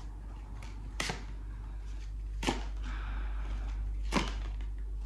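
A deck of tarot cards being shuffled by hand: three sharp card snaps about a second and a half apart, with faint rustling of the cards between them.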